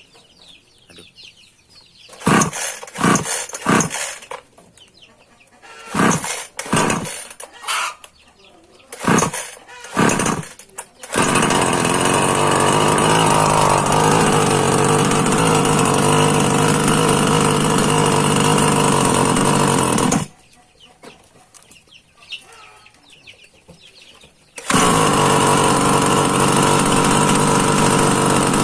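H&L Pro mini two-stroke petrol chainsaw being pull-started: short bursts in three groups of sputters before the engine catches, runs steadily for about nine seconds and stops. A few seconds later it is started again and runs steadily. Chickens cluck faintly in the gaps.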